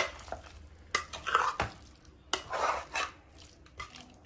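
A spoon stirring chicken pieces in a pressure cooker pot: scraping strokes with several sharp clinks of the spoon against the pot.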